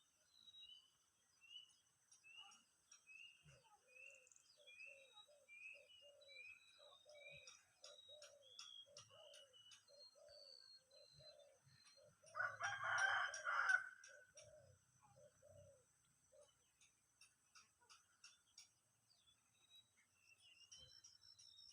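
Birds calling faintly: a high chirp repeated about twice a second, joined by a lower note repeated at a similar pace. About twelve seconds in, a louder call lasts about a second and a half.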